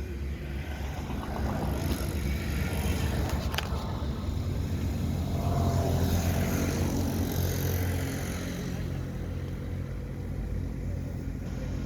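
A motor engine running with a low, steady rumble, growing louder about six seconds in and then easing off.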